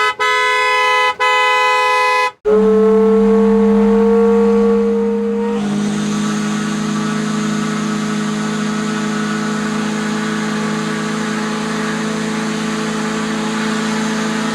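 A horn honked in a few quick, harsh blasts, then a steam foghorn sounds one long blast. It opens on a higher note, and after about three seconds it drops to a lower steady note with a rushing hiss.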